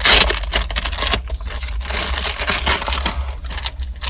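Plastic crinkling and rustling in irregular bursts, the sound of packaging and cables being handled close to the microphone, loudest right at the start.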